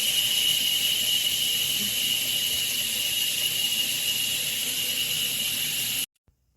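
Filtered shower head spraying water: a steady hiss with a high tone running through it, cutting off abruptly about six seconds in.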